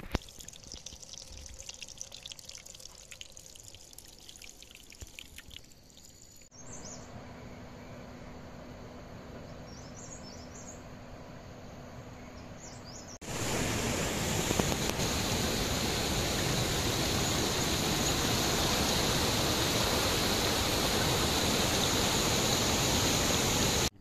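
Running water in several cut-together takes: first a small trickle with light splashes, then, a little past halfway, a much louder steady rush of water that cuts off abruptly at the end.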